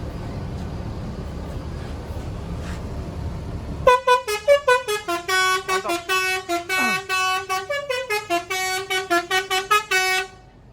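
A bus's telolet basuri musical horn playing a quick melody of many short notes that step up and down in pitch, starting about four seconds in and stopping a little before ten and a half seconds. Before the horn, a steady low rumble.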